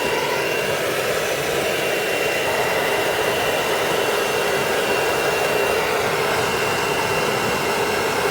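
Hair dryer blowing steadily on a toy poodle's coat as it is dried and brushed, a continuous rushing air noise with a faint high whine.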